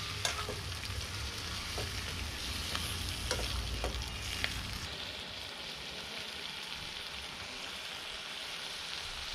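Chicken pieces sizzling as they fry in a metal wok, with a metal spatula clinking and scraping against the pan in sharp knocks during the first few seconds of stirring. The sizzling then goes on steadily without the knocks.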